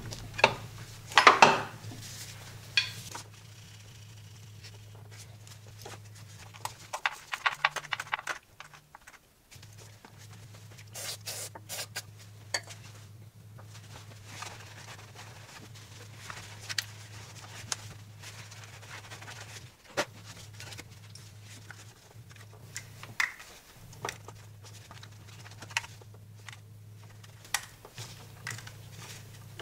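Hands fitting a Vanos solenoid into a BMW N55 engine: scattered clicks and clinks of metal tools and plastic parts, with a quick run of clicks about seven seconds in. A low steady hum sits underneath.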